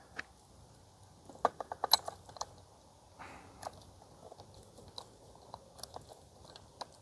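Light clicks and rattles of a chainsaw chain and guide bar being handled and fitted onto a Stihl chainsaw, with a quick cluster of clicks about a second and a half in and scattered single clicks after.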